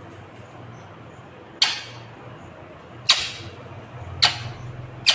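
Indian ringneck parakeet giving short, sharp, shrill calls, four in a row about a second apart, over a steady low hum.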